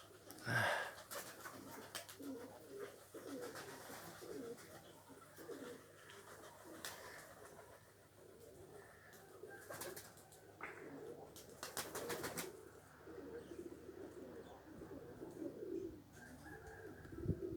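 Domestic pigeons cooing continually. A few sharp clicks or knocks cut in, the loudest about half a second in and a quick cluster around twelve seconds in.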